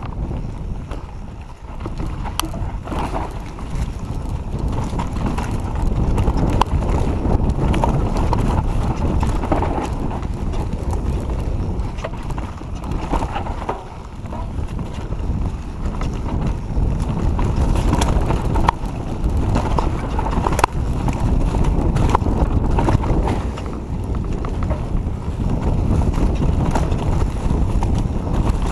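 Wind on the microphone over the rumble of knobby tyres on a dirt trail, with frequent knocks and clatter from a Giant Reign full-suspension mountain bike ridden fast downhill over bumps. The noise eases briefly twice, near the start and about halfway through.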